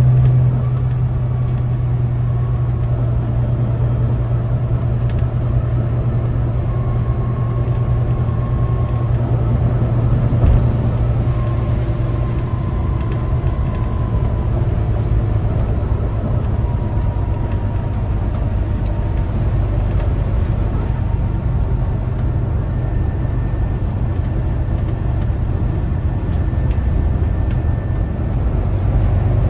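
Volvo B9TL double-decker's rear-mounted six-cylinder diesel and road noise, heard inside the upper deck as a steady low drone. A faint whine drifts slowly in pitch, and there is a single knock about ten seconds in.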